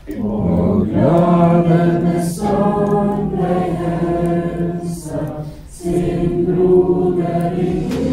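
A group of voices singing together in held notes, in three phrases with short breaks about two seconds and about five and a half seconds in.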